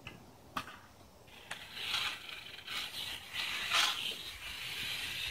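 Eastern diamondback rattlesnake rattling its tail: a dry, hissing buzz that starts about a second and a half in and swells and fades as the snake is held, after a couple of sharp clicks.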